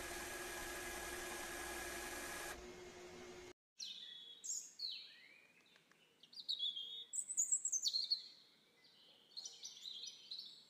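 Birds chirping and singing in short, repeated high calls with quick sweeping notes, busiest around the middle. Before them a steady hiss with a low hum runs for the first few seconds and cuts off.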